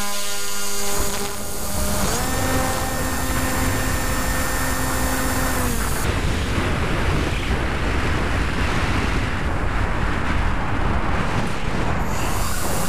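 Bixler 2 RC glider's electric pusher motor whining as heard from the GoPro riding on the plane in flight, over a steady rush of wind on the microphone. The motor note steps up in pitch about two seconds in, holds, then falls away about six seconds in, leaving mostly wind rush.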